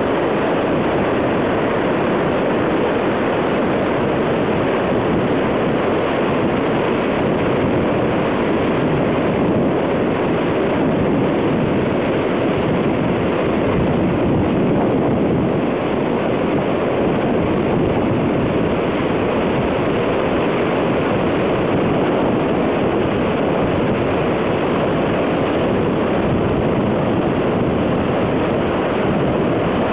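Floodwaters roaring down a rocky river gorge, a loud, steady rush of white water that runs on without a break.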